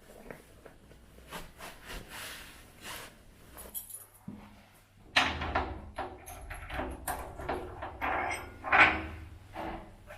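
An irregular series of knocks, clicks and rustles, louder from about halfway through.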